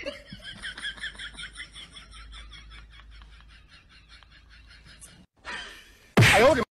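Chicken calling in a rapid series of short high notes, about five a second, that grow fainter and stop about five seconds in, followed near the end by a short call and then a sudden loud squawk as it lunges at the mantis.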